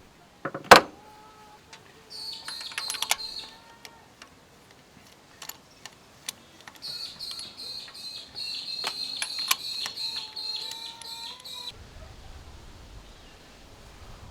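Ratchet wrench turning a spark plug socket, its pawl clicking rapidly with a high metallic ring, in two runs: a short one about two seconds in and a longer one from about seven to eleven seconds, as the spark plugs are unscrewed. A single sharp knock comes under a second in.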